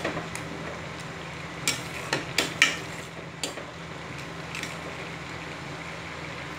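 A spatula stirring a thick spinach curry in a stainless-steel pan, with several scrapes and knocks against the pan, most of them in the first half. A steady low hum runs beneath.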